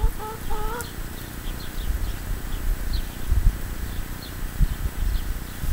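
A flying insect buzzing close to the microphone in short broken stretches, rising in pitch and stopping about a second in. After that comes a low rumble with a few soft thumps and faint high chirps.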